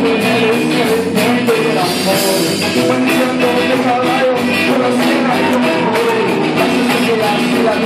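Live rock band playing loud, with drums keeping a steady beat.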